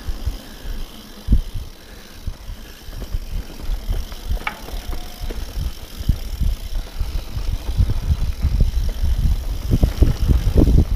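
Mountain bike riding over rocky dirt singletrack: a steady low rumble with many short knocks and rattles from the bike going over stones, and wind rumble on the microphone. It gets rougher and louder in the last few seconds.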